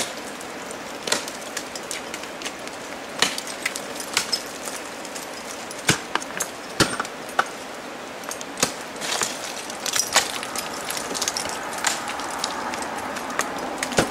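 Ice axe picks striking and setting into the ice and crampons kicking, heard as irregular sharp knocks, with carabiners and climbing hardware on the harness clinking. A steady hiss runs underneath.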